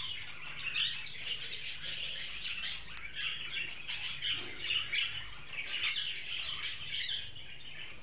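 A colony of budgerigars chirping and chattering without pause, a dense twittering with now and then a louder chirp.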